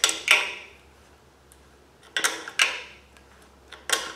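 Sharp metal clinks of a crescent wrench working the nut on a homemade threaded-rod balancer installer, three pairs of clicks a couple of seconds apart, as the nut is turned to draw the harmonic balancer onto a small-block Chevy 350's crankshaft.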